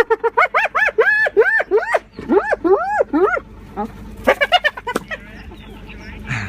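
Hyenas calling: a fast series of short, high yelps slows into rising-and-falling cries, then breaks off about five seconds in.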